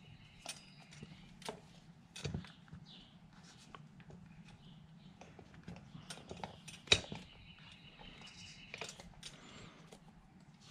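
Light handling noises: scattered small clicks and taps as paracord is tied and a carabiner is clipped onto a stainless steel transom wheel bracket, with one sharper click about seven seconds in. A faint steady low hum runs underneath.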